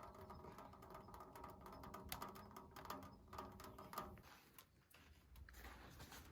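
Faint, scattered crackling and ticking from a Mt.SUMI wood stove during its first firing, with wood burning inside and the surface paint burning off. A faint steady hum lies under it for about the first four seconds.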